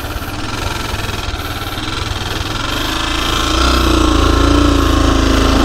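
Motorcycle engine running under way with a fast, pulsing rumble, picking up revs and getting louder a little past halfway through.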